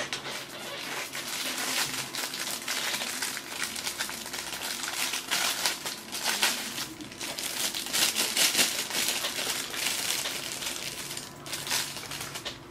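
Clear plastic bag crinkling and rustling as it is handled, a dense run of crackles that thins out near the end.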